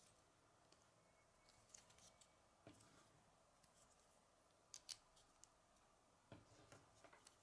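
Faint, scattered clicks and light taps of a small plastic Lego model being handled and turned over in the hands.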